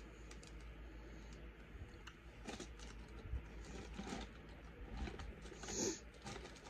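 Faint scattered clicks and rustles of snack packages being handled while someone rummages through them, with one brief louder rustle near the end.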